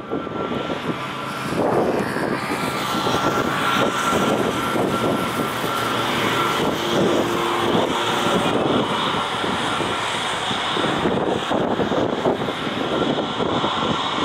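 Airbus A321neo airliner's jet engines running steadily, a continuous rushing noise with a faint whine through it.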